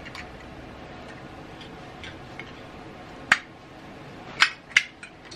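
Scattered light ticks over a faint steady background, then three sharp clicks about three to five seconds in, like small hard objects knocked or handled.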